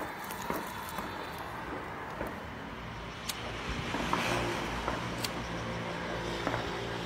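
A motor vehicle engine running in the street, a low hum that grows louder about three and a half seconds in, with a few scattered sharp clicks.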